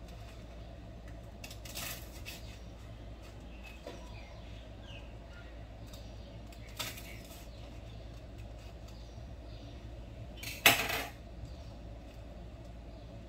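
Kitchen knife cutting wholemeal bread on a wooden chopping board, with a few soft knocks of the blade against the board. About ten and a half seconds in, the knife is put down on the stone worktop with one sharp metallic clatter, the loudest sound. A steady low hum runs underneath.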